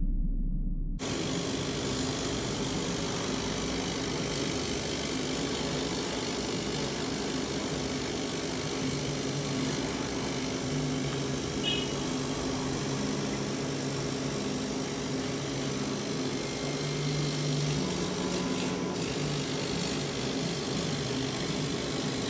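Laser cutting machine running as its head cuts a stencil outline: a steady machine whir with low hums, some of which shift in pitch as the head moves. It starts about a second in.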